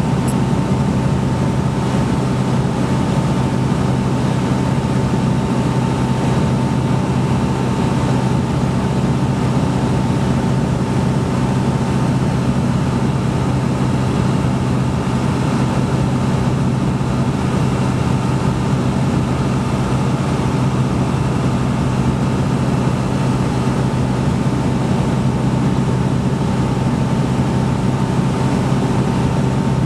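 Ultralight aircraft's piston engine and propeller running steadily at cruise power, heard inside the cockpit, with an even hum and a steady higher whine over the rush of air, unchanging in pitch.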